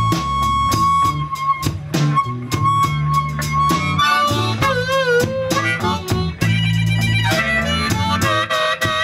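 Live blues band with a harmonica solo, the harmonica played cupped into a vocal microphone over electric guitars, bass and drums. The harmonica holds one long note for the first few seconds, then bends and wavers in pitch around the middle before moving on to shorter notes.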